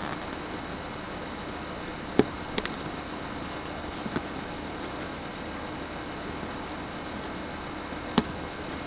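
Handling of a rubber skimmer gasket against a plastic faceplate as it is worked around the opening: a few sharp clicks and taps, the loudest about two seconds in and near the end, over a steady background hiss.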